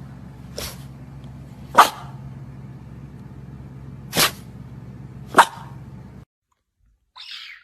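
A dog barking: four short, sharp barks spaced over about five seconds, over a steady low hum that cuts off about six seconds in.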